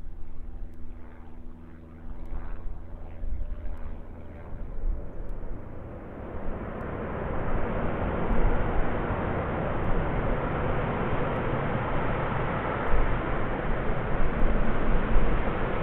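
The four Rolls-Royce Trent 500 jet engines of an Airbus A340-600 running: at first a low rumble with a steady whine, then from about six seconds a loud jet roar that builds and holds as the thrust is increased.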